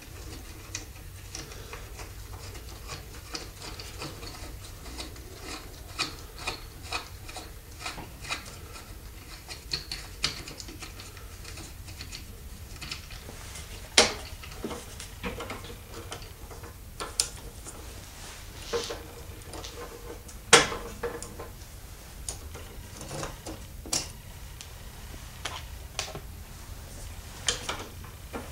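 Hands handling a homemade wooden spiral jig: wood rubbing and scraping, with scattered light clicks and two sharper knocks, about 14 and 20 seconds in. A low steady hum runs underneath.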